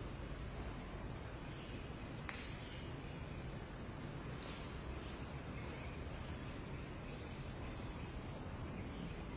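Steady high-pitched insect chorus, with a single sharp click a little over two seconds in.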